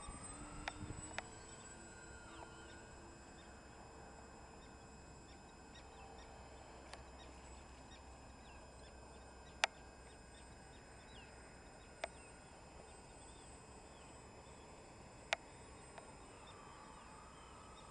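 Faint whine of a radio-controlled scale flying boat's brushless electric motors and propellers as it flies overhead, its pitch drifting slowly as the model moves. A few sharp clicks stand out above the whine.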